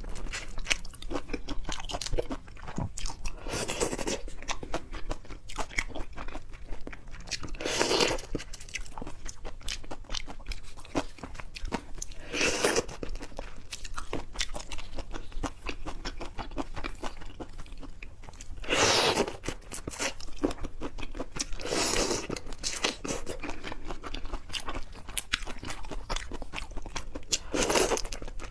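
Close-miked chewing of seafood: continuous wet, clicky mastication, with about six louder crunching bites a few seconds apart.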